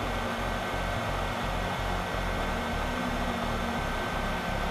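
Hot air rework station blowing a steady stream of hot air, a fan-driven hiss with a faint steady whine, while it reflows solder paste on a circuit board.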